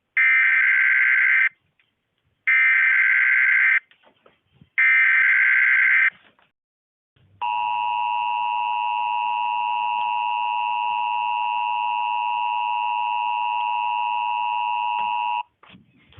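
Emergency Alert System alert tones: three short bursts of screeching digital SAME header data about a second apart, then the steady two-tone EAS attention signal held for about eight seconds before cutting off abruptly.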